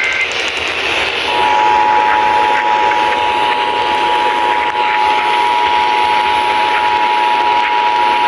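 Emergency Alert System attention signal, the two-tone 853 and 960 Hz alarm, heard over AM radio with static hiss. It starts about a second in and holds steady, just after the end of the digital header data burst.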